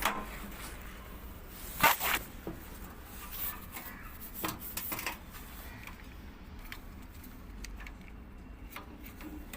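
Scattered clicks and knocks of parts being handled, with one louder knock about two seconds in, over a faint low hum.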